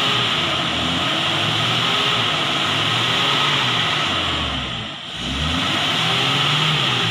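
Toyota Kijang engine revving up and down repeatedly as the car labours through deep slippery mud, easing off about five seconds in, then revving again. A steady hiss runs under the engine.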